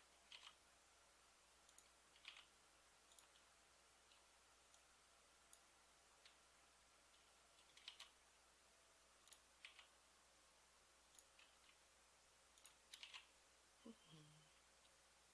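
Near silence broken by scattered faint clicks of a computer mouse and keyboard being worked, about a dozen at irregular intervals.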